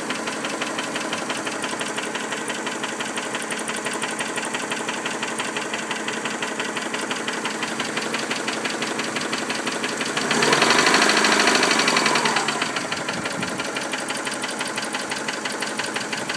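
First-generation Subaru Legacy's EJ20 flat-four engine idling with a regular ticking, the abnormal engine noise being recorded. It is revved once, briefly, about ten seconds in, then drops back to idle.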